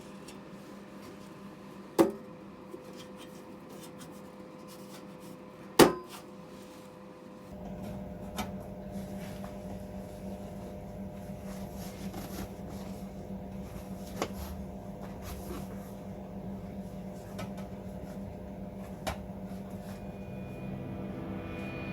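A few sharp knocks, two of them loud, then a steady mechanical hum that starts about seven seconds in, with occasional light clicks over it.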